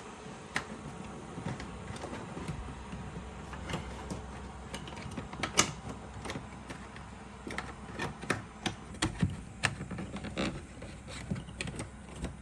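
Hands working the plastic door-panel parts of a truck door: irregular clicks and light taps, one sharper click about five and a half seconds in and a quicker run of them in the second half.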